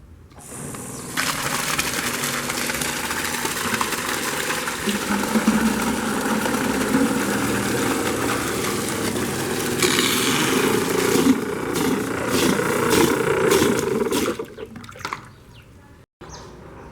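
Water gushing and splashing from the outlet of a homemade PVC-pipe water pump driven by an old washing machine motor. It is a steady, loud rush that starts about half a second in and dies away a couple of seconds before the end.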